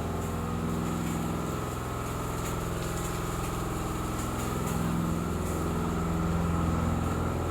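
Emergency fire pump's engine running steadily, its hum growing a little louder from about five seconds in.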